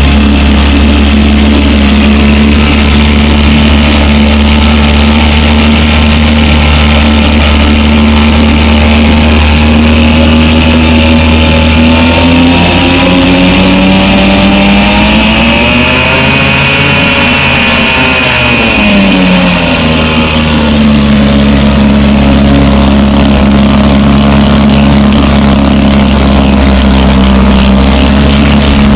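1959 Evinrude Lightwin 3 hp two-cylinder two-stroke outboard motor running steadily and loud, its speed changing briefly midway before settling back. It runs with its rebuilt water pump working, the telltale squirting cooling water.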